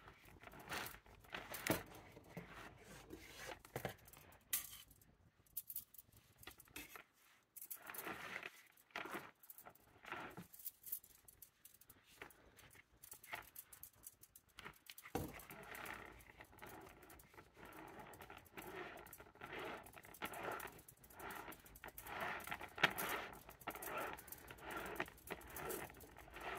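Bonsai wire being coiled around a young larch trunk by gloved hands: faint, irregular scraping and rattling of the wire with scattered small clicks, easing off briefly a couple of times.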